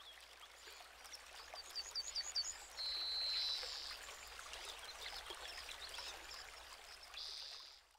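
Small mountain stream trickling over rocks, a steady high hiss. A bird calls over it: a quick run of about five notes, then a high held whistle about three seconds in.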